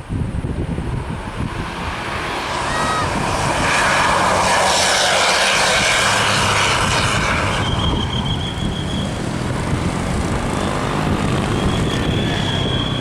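A vehicle passing close with a low engine rumble and a loud rush of noise that swells for about five seconds and then fades. Afterwards a thin, high, steady tone sounds three times.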